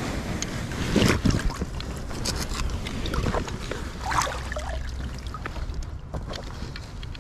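River water splashing and sloshing as a hand and a wooden landing net move through it beside a float tube, with the loudest splashes about a second in and again around four seconds, over a low wind rumble on the microphone.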